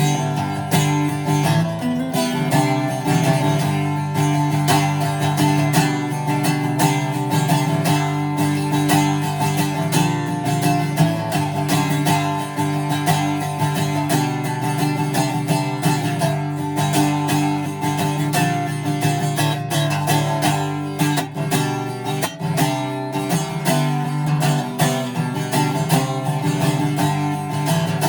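Greco D-70 dreadnought acoustic guitar played continuously, with a quick, even stream of strokes across the strings.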